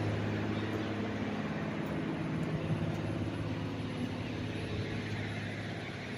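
Steady low rumble of vehicle engines and traffic, a constant hum with no distinct knocks, easing off slightly near the end.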